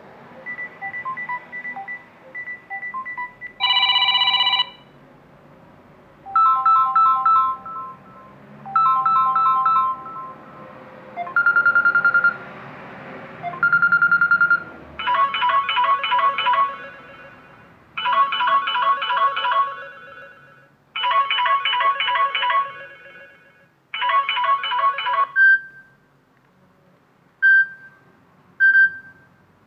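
Samsung Galaxy A03 Core phone speaker playing a string of ringtone previews, one after another. Each is a short electronic melody or tone lasting a second or two before it stops. From about halfway in, one melody repeats in phrases of about two seconds.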